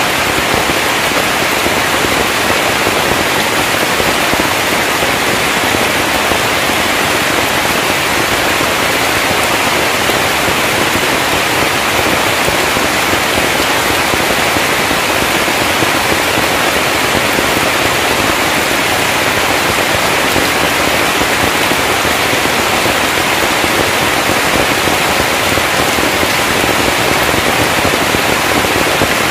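Heavy rain falling steadily on a thatched roof, an even hiss that does not let up.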